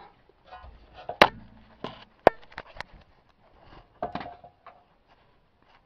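Metal hand tools clinking as an 18 mm socket, wobble extension and half-inch ratchet are handled and fitted onto a brake caliper hanger bolt: two sharp clinks about one and two seconds in, the second ringing briefly, then scattered lighter clicks and knocks.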